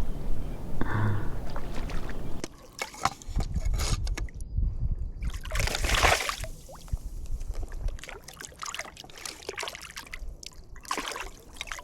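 Shallow saltwater sloshing and splashing around a wading angler, coming in several surges a few seconds apart.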